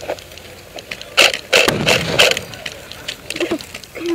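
Movement noise on a head-mounted camera: scraping and knocking as the wearer shifts through tall grass with gear. It is loudest in a cluster of sharp scrapes between about one and two seconds in.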